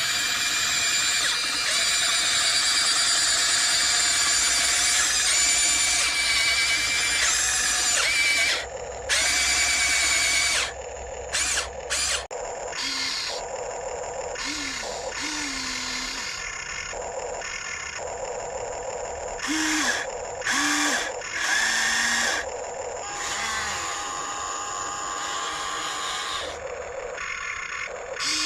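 Small electric motors of a Huina 1594 RC excavator whining as it is operated. The motors run steadily for about eight seconds, then in short start-stop bursts.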